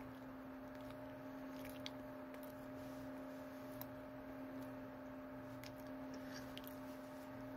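Quiet small room with a steady low hum, and faint scattered clicks and squishy mouth sounds of someone chewing a soft glazed chocolate mini cake.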